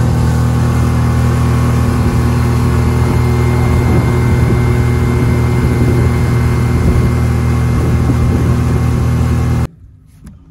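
Outboard motorboat running at a steady speed, the engine's drone mixed with the rush of the churning wake. It cuts off abruptly near the end, leaving a much quieter scene.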